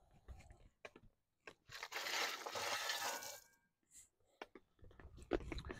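Shovel scooping gravel and tipping it into a post hole: a grainy pour lasting about a second and a half near the middle, with scattered scrapes and knocks of the shovel around it.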